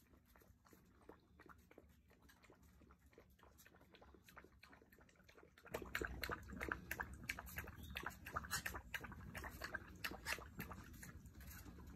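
Basset hound puppies at play: scuffling with many short clicks, faint at first and louder and busier from about halfway through.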